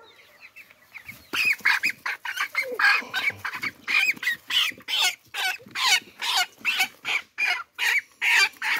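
Young broiler chickens peeping faintly, then from about a second in a loud run of harsh, rapid squawks, about two or three a second.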